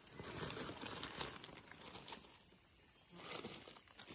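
Insects droning with a steady high-pitched buzz, over soft rustling that thins out about two seconds in.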